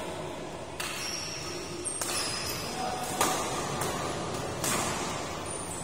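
Badminton rackets striking a shuttlecock during a fast doubles rally: a string of sharp hits roughly every half second to second, the loudest a little past three seconds in.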